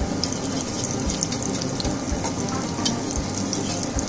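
Potato pancakes sizzling in shallow vegetable oil in a frying pan: a steady hiss with frequent small crackles and pops.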